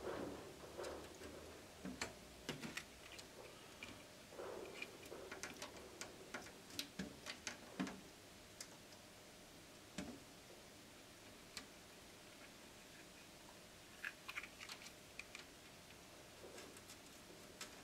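Faint, scattered small clicks and taps of wires and a soldering iron being handled against a copper-tape strip while a wire is soldered on. They come irregularly, mostly in the first half and again near the end.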